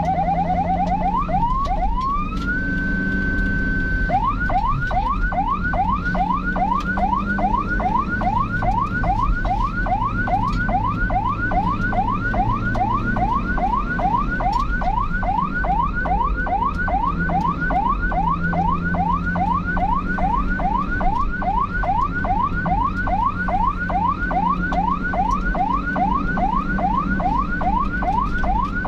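Electronic emergency-vehicle siren. A few slow rising sweeps lead into a glide up to a steady held tone. About 4 s in it switches to a fast yelp of rising sweeps, about three a second, over the low rumble of a vehicle moving.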